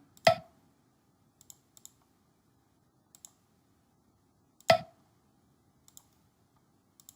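Computer mouse clicking: two sharp, loud clicks, one at the start and one a little past the middle, with a few faint ticks in between.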